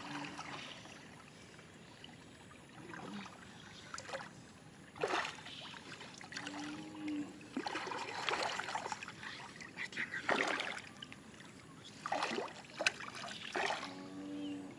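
Water splashing in short bursts a second or two apart, over a faint trickle.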